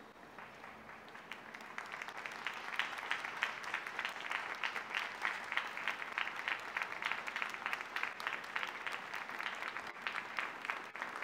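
Audience applauding, building up over the first two seconds and then going on as a steady, dense clapping.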